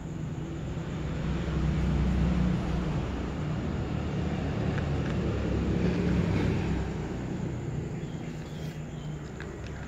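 A cat crunching dry kibble from a plastic tub, the crunches faint. Over them, the loudest sound is a low rumble that swells and fades twice.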